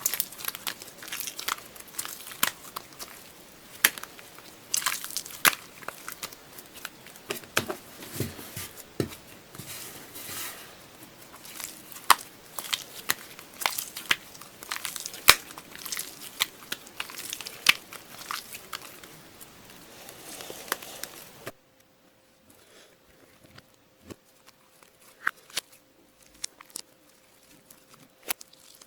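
Hands squishing and pressing slime, giving a dense run of small crackling pops and clicks. About three-quarters of the way through it cuts abruptly to a much quieter stretch with only occasional pops and a faint steady hum.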